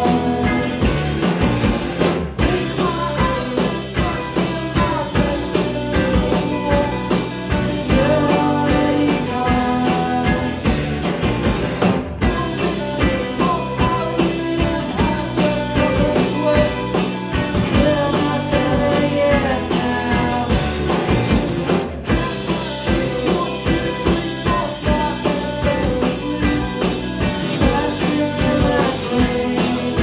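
Live rock band playing: electric guitars, bass guitar and drum kit, loud and driving. The whole band cuts out for an instant three times, about ten seconds apart.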